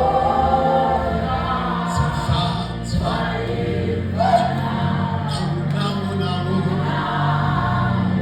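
A group of voices singing a gospel song over sustained low instrumental notes.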